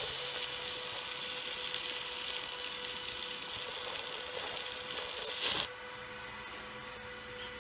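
Stick-welding arc from a Suzukid Imax 120 SIM-120 DC inverter welder burning a rod on steel: a steady crackling hiss that cuts off a little under six seconds in as the arc is broken.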